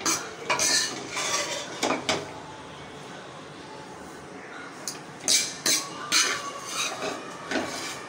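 A spoon scraping and clinking against a karahi as cooked dal is scooped out and tipped into a bowl. It comes in two clusters of strokes with a pause of about three seconds between them.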